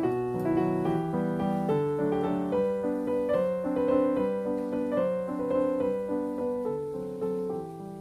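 Background piano music: a gentle melody of one note after another over lower held notes.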